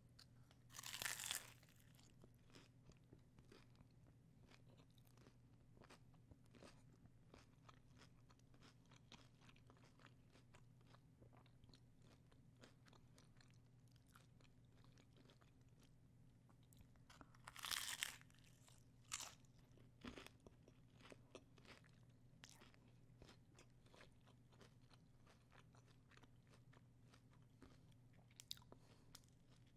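Bites into a crunchy homemade taco shell close to the microphone: a loud crunch about a second in and another near the middle, with a few sharper bites right after it and quiet chewing and mouth clicks in between.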